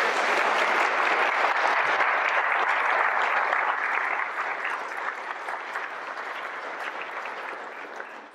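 Audience applauding a speaker's introduction. The clapping is full for the first few seconds, then slowly thins and dies away near the end.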